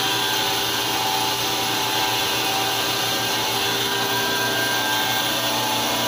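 Electric meat band saw running steadily, a constant machine whir with no pauses.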